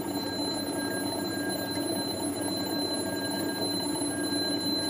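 Electric alarm bell ringing continuously inside a bell jar, muffled by the partial vacuum and growing slightly louder as air is let back in through the valve. The return of air lets the sound carry again.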